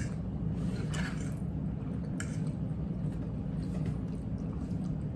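Quiet eating sounds: chewing, with a few faint clicks of forks and a knife on plates, over a steady low hum.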